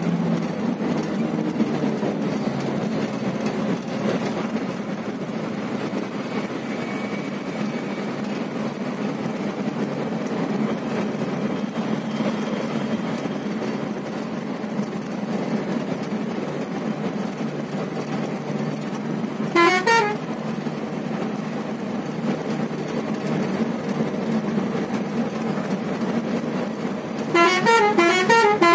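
Steady engine and road rumble heard from inside a vehicle's cab in traffic. A multi-tone vehicle horn warbles briefly about two-thirds of the way through. Near the end it sounds again, longer and louder, warbling up and down in pitch.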